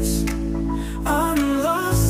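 Background music: a sung love song, with held instrumental notes and a singer's voice coming in about a second in.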